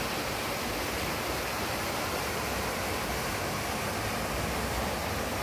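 Spring water running steadily through stone bathing pools, a constant even rush with no breaks.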